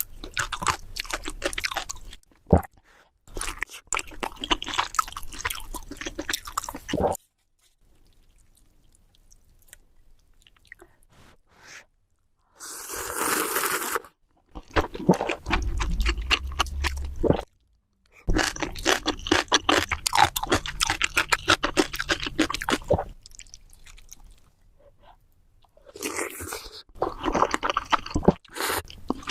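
Close-miked eating: crunchy food bitten and chewed in several long runs of dense crunching clicks, with quiet pauses between, and a brief rush of noise about halfway through.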